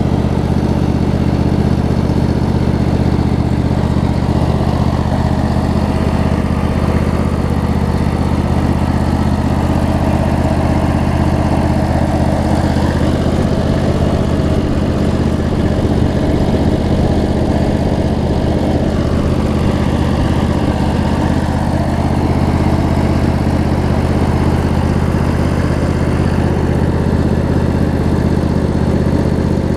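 Briggs & Stratton 25 hp V-twin engine on a Craftsman DLT riding mower, running steadily at an even speed. It will not shut off because the ground stop does not work, which the mechanic puts down to the coil's ground wire not being connected.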